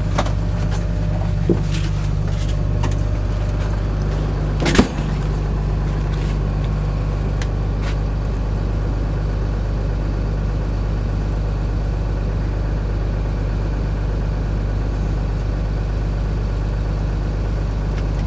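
Steady low drone of the tool truck's idling engine, heard from inside the truck. A few light clicks of handling come in the first seconds, and one sharp knock falls about five seconds in.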